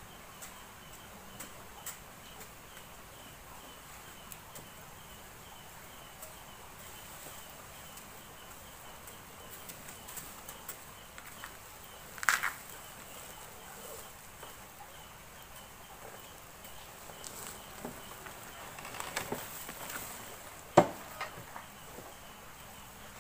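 Faint, evenly repeated chirping of insects, with scattered clicks and knocks over it: a short louder rasp about 12 seconds in and a sharp knock about 21 seconds in. No engine is running.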